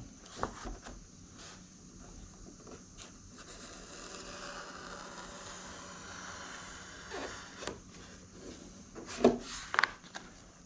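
Razor blade drawn lightly along a foam marine mat, just scoring the backing paper, with a long faint scraping run in the middle. Small handling clicks, and a couple of sharper clicks near the end.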